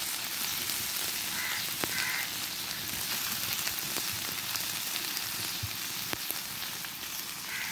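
Raw chicken pieces frying in hot soybean oil with onions and green chillies in a cast-iron karahi: a steady sizzle, with a few clicks of a steel spatula against the pan.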